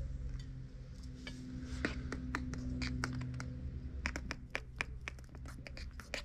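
An irregular run of light clicks and taps from small hard objects being handled, thickest past the middle, over a low steady hum.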